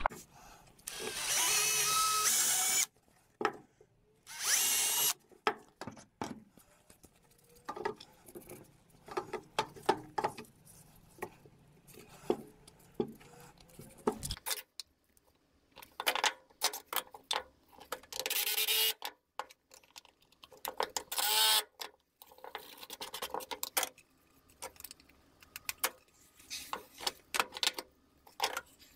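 Cordless drill running in short bursts, drilling pilot holes and driving screws into pine: a run of about two seconds, then a shorter one, and two more brief runs later. Between them come clicks and knocks of wood and tools being handled.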